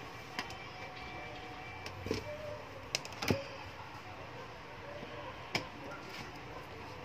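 A handful of short clicks and knocks of a screwdriver and hands working at the back panel of a flat-screen TV as it is taken apart, the loudest a little under halfway through, over a steady low background hum.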